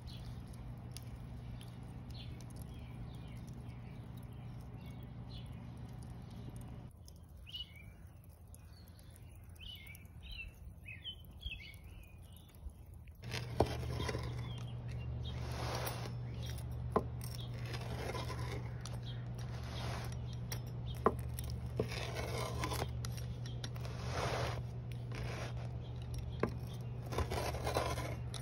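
A wheel pizza cutter rolling through a crisp pan-pizza crust on a wooden board: a run of repeated crunchy scraping strokes over a steady low hum, starting about halfway through. Before that, birds chirp briefly during a quieter stretch.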